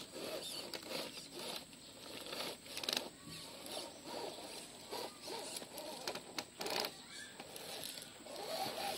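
RGT Rock Hammer RC rock crawler scrabbling over rock and dry leaves: irregular scrapes, rustles and crackles, with a few sharper clicks around the middle.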